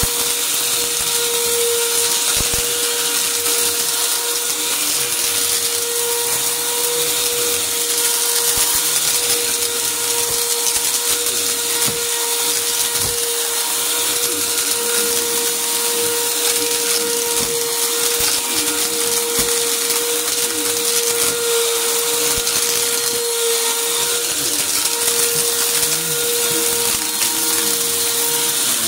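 Upright bagless vacuum cleaner running on carpet: a steady motor whine under a strong airy hiss, with scattered crackles and clicks of grit and debris crunching up through the nozzle.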